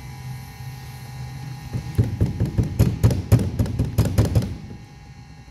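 A quick, uneven run of sharp metal knocks and clacks lasting about two and a half seconds, from a puller clamped on a windscreen wiper arm being worked against the arm's seized spindle mount. The arm has not been off for years. A low steady hum comes before the knocks.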